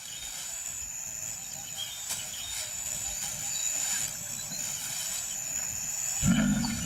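Outdoor bush ambience with a steady high-pitched insect trill, like a cricket, over a faint hiss. A low rumble starts near the end.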